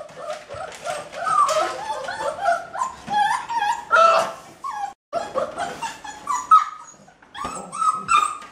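Several puppies whining and yipping over one another, a dense run of short high cries with a brief break about five seconds in. They are hungry, begging for their breakfast porridge.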